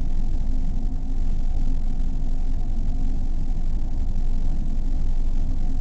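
Neural-network-generated dark ambient music (SampleRNN): a dense, steady low rumbling drone with no beat.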